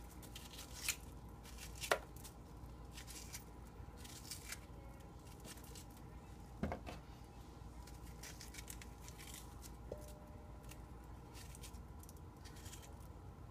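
A spoon scraping the seeds out of halved zucchini: faint, scattered scrapes and clicks, the sharpest about two seconds in and again near seven seconds.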